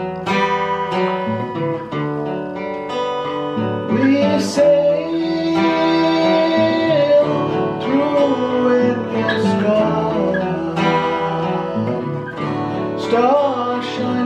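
Acoustic guitar strumming chords, with a man singing over it from about four seconds in.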